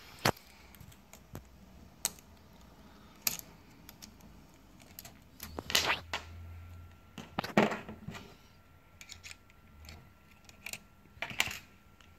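Small metal clicks and clinks from a precision screwdriver and the metal hot-shoe plate being worked on a Canon 5D Mark III body, a sharp click every second or two with two louder clattering clusters in the middle.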